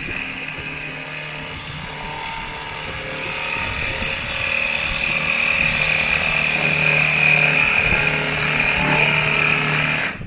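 Milwaukee M12 2445-20 cordless jigsaw cutting through 1 inch of stacked plywood with a multi-purpose blade. The motor runs steadily without bogging down, grows louder partway through the cut, and stops abruptly near the end.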